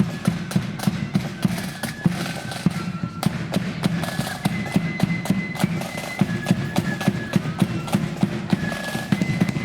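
Marching flute band playing a tune: high flutes carry the melody over rapid, loud snare drum strikes and a heavy bass drum beat.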